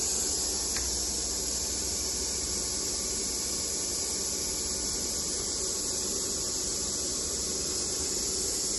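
Steady hiss of pink noise played through a car's sound system, the test signal used to measure and equalize the speakers with a real-time analyzer.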